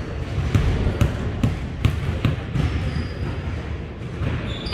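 Basketball bouncing on a hardwood gym floor: a run of sharp knocks about two a second, the free-throw shooter dribbling before the shot, over the low rumble of a large hall.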